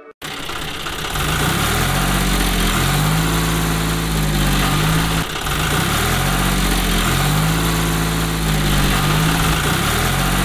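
Tractor engine sound effect running steadily, its pitch wavering up and down in a pattern that repeats about every five seconds. It cuts in abruptly just after the start.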